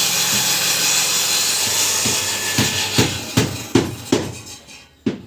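Wood planing machine running with a steady hiss, then winding down near the end, with a series of knocks from about two seconds in.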